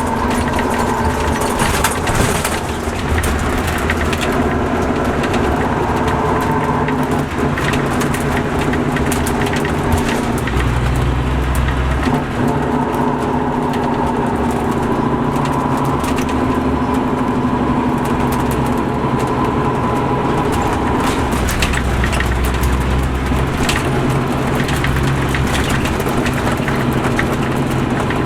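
MCI D4500CL coach's Caterpillar C13 diesel engine running steadily, its pitch shifting a few times, with frequent rattles and clicks over it.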